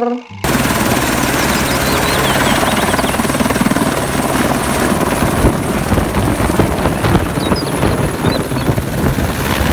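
Full-size single-rotor helicopter running at flight power and lifting off, with fast, even rotor-blade chop and a steady high turbine whine. The sound cuts in abruptly about half a second in.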